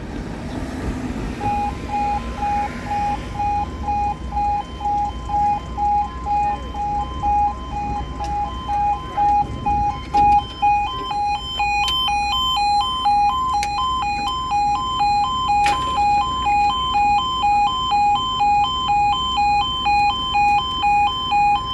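Level crossing audible warning alarms sounding as the barriers lower: an electronic two-tone alarm alternating between two pitches starts about a second and a half in, and a second, higher-pitched two-tone alarm grows louder about halfway through.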